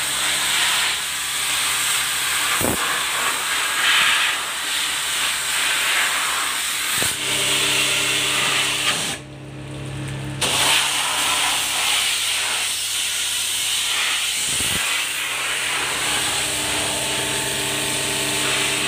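High-pressure washer jet spraying against a truck's underside, a loud steady hiss over the steady hum of a HAWK 300-bar pressure washer pump. The spray cuts off for about a second near the middle, leaving only the hum, then starts again.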